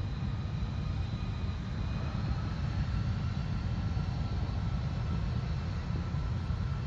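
Turbofan engines of a United Express Embraer regional jet at taxi power: a steady low rumble with a faint, high, steady whine of several held tones over it.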